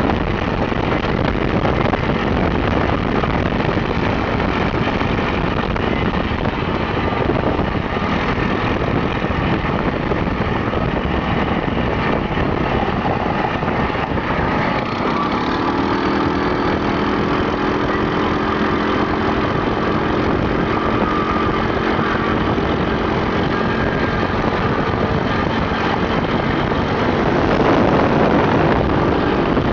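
Off-road vehicle's engine running over a gravel track with steady road and wind noise. About halfway in, an even engine hum with a fixed pitch comes through, as at idle, and near the end there is a brief louder rush.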